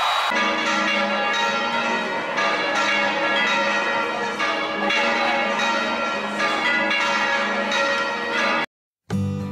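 A peal of several church bells ringing from a cathedral's bell towers, strike after strike overlapping with long ringing tones. It cuts off abruptly near the end.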